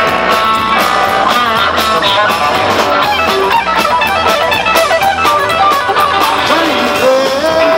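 Live rock and roll band playing: a hollow-body electric guitar plays lead in quick runs of notes over upright double bass and drums keeping a steady beat, with one guitar note sliding up and held near the end.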